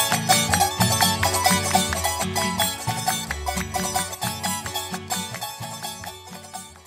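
Andean folk music with plucked strings over a steady, rhythmic bass, gradually fading out to silence as the track ends.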